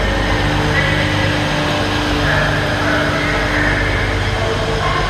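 TransPennine Express Class 185 diesel multiple unit moving slowly along the platform, its underfloor diesel engines giving a steady low hum.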